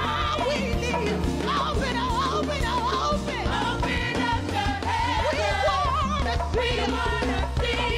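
Live gospel worship music: several singers holding and embellishing lines with vibrato over keyboard and held bass notes, with timbales played with sticks.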